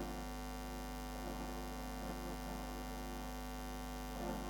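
Steady electrical mains hum, a low buzz with a stack of even overtones that stays unchanged throughout.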